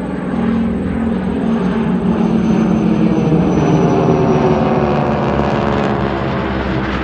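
Four propeller airplanes flying overhead in close formation with a steady engine drone. The drone builds to its loudest about halfway through, then drops slightly in pitch as the formation passes.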